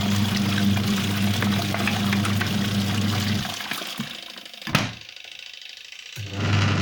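Clatronic MWA 3101 mini washing machine washing: the motor hums steadily with water sloshing in the tub, then stops about three and a half seconds in. A single sharp click comes during the pause, and the motor and water start up again just before the end.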